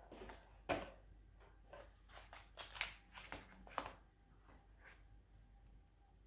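Tea packaging handled on a table: a sharp tap about a second in as a cardboard tea box is set down, then a run of short crinkles from a stand-up paper tea pouch being placed and straightened.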